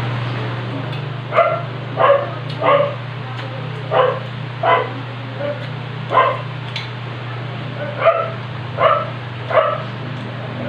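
A dog barking repeatedly, about ten short barks in uneven runs starting a second or so in, over a steady low hum.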